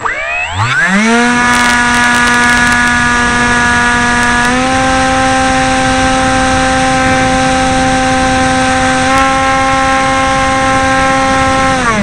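Bixler's electric motor spinning its 5x5 APC propeller with a steady high whine: it spins up quickly at the start, runs steadily with two small rises in pitch about four and nine seconds in, and spins down near the end. Heard from close up through the plane's onboard minicam, over a rushing hiss.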